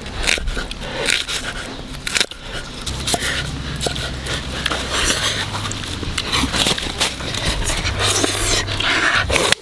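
A knife knocking on a wooden chopping block as shallots are sliced, a quick series of sharp taps, followed by a steady low rumble.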